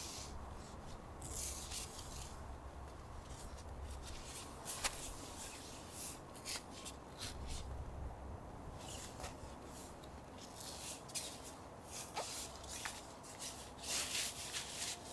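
Intermittent rustling and scraping of a winter jacket, gloved hands and snow as a person kneels adjusting a tent guy line at its stake, with a few sharp clicks.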